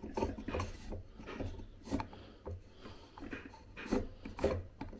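Telescopic IKEA Olov table leg being twisted by hand to lock its height adjustment: uneven scraping and rubbing, with a few knocks, the loudest near the end.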